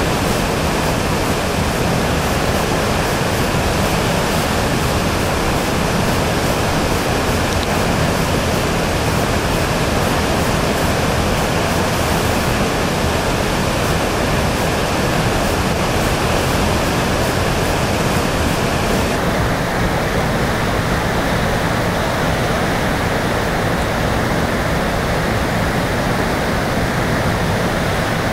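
River Feale running fast and churning around bridge piers: a steady rush of turbulent water.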